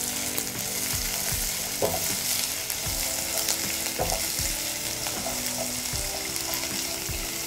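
Sliced onions, garlic, green chilli and curry leaves sizzling in hot oil in a non-stick pan for a Sri Lankan tempering, with a steady hiss. A silicone spatula stirs them, making irregular soft scrapes and knocks against the pan.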